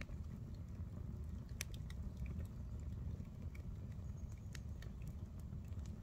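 Wood campfire crackling, with irregular small pops and one sharper pop about a second and a half in, over a steady low rumble.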